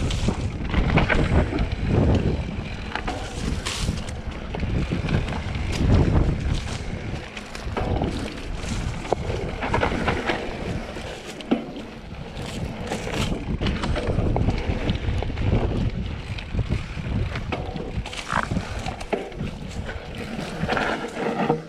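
Mountain bike descending a rough downhill trail: wind rushes over the microphone while the tyres run over dirt, and the bike rattles and knocks over bumps in frequent sharp clicks.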